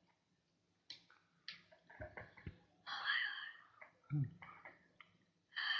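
A girl's short, sharp breaths and hisses of air through the mouth as she reacts to the burn of very hot sauce, with a brief low grunt about four seconds in and a couple of small knocks around two seconds in.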